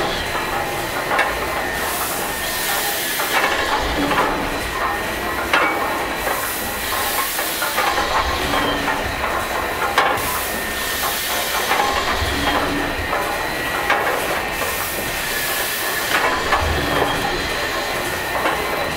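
An 1885 Gimson compound beam steam engine running slowly. Steam hisses, swelling and fading about every two seconds with each stroke, and scattered clicks and knocks come from the moving parts.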